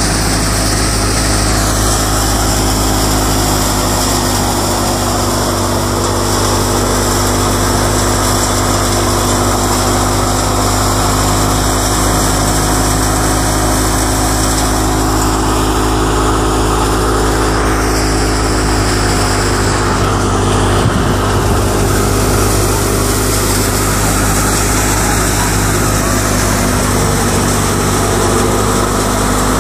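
Tractor-driven crop thresher running steadily, its drum and fans turning with the tractor engine as dry crop plants are fed in and grain pours out.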